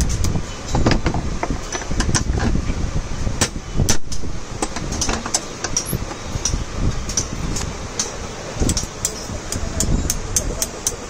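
Irregular sharp metal taps and clicks from a hammer and punch striking a Delco starter motor's Bendix drive held in a bench vise, with the metal parts knocking as the drive is handled, over a steady low background rumble.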